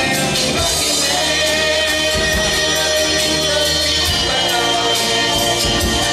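A live band playing a song with singing over a steady drum beat.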